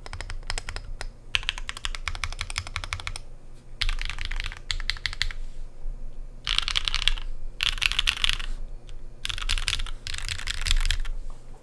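Fast typing in short bursts on an SP111-R2 custom mechanical keyboard with lubed Zaku long-pole linear switches, aluminium plate and GMK keycaps. Rapid keystroke clacks in runs of one to two seconds, with brief pauses between them.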